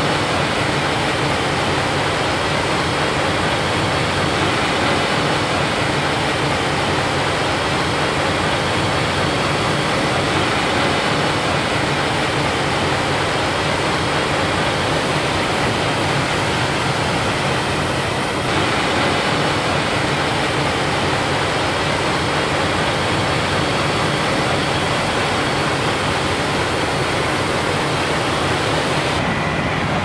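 CLAAS Lexion 8800 combine harvester running while cutting wheat: a steady, dense mechanical noise of engine, threshing and header, with a faint high whine. The sound shifts abruptly about 18 seconds in and again near the end.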